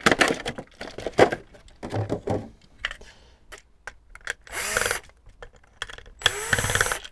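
DeWalt cordless drill/driver whirring in two short runs, about four and a half and six seconds in, backing the screws out of a plastic 30 amp RV plug casing; the first run rises in pitch as the motor spins up. Before that, plastic packaging crackles and clicks as it is opened.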